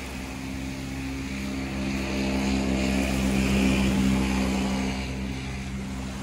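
A motor's steady hum passing by, growing louder to a peak around the middle and then easing off.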